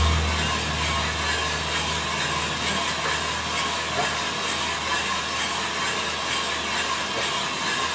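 Small drum coffee roaster running mid-roast: its drum motor and blower give a steady low hum with a hiss of air over it, and a few faint clicks.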